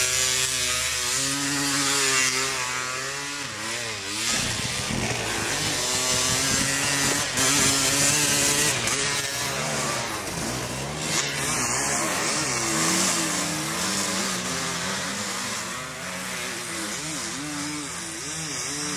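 Engine of a snow quad (an ATV fitted with front skis and rear tracks) revving up and down repeatedly as it rides.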